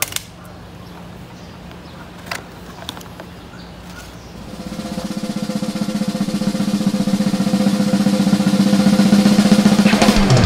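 A snare drum roll begins about four seconds in and builds steadily in loudness. Before it there is only a steady low hum and a few light clicks from the cardboard box being handled.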